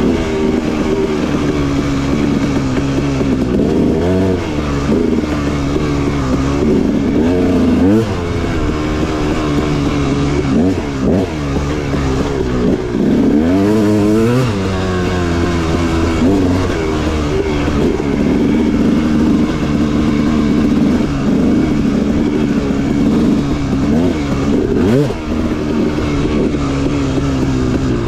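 Dirt bike engine running hard along a trail, rising and falling in pitch as the throttle is opened and closed, with several quick revs throughout.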